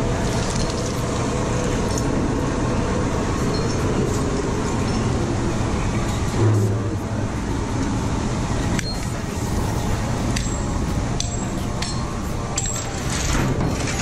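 Steady din of sugar-mill cane-handling machinery with frequent metallic clinks and rattles from the chains of the cane conveyor and the hoist. A heavy low thump comes about six and a half seconds in.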